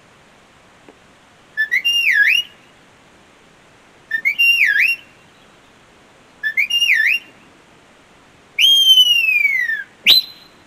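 A sheepdog handler's whistle commands to a young Border Collie: three short identical whistles that dip and rise in pitch, repeating her individual command to go out to the left around the sheep. Near the end comes a long whistle falling in pitch, then a short sharp rising one.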